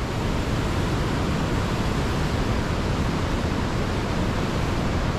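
Steady rushing noise of a fast-flowing river running below and beside a suspension footbridge, with no distinct events.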